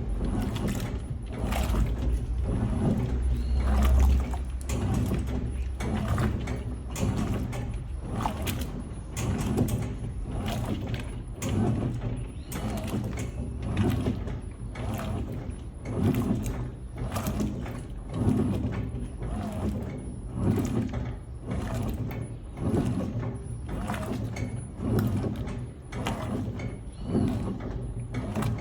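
Electrolux LTM16 top-loading washing machine in its wash cycle, the agitator swinging back and forth over the motor's hum with a swish of water about every one and a half seconds. A low rumble in the first few seconds stops about four seconds in.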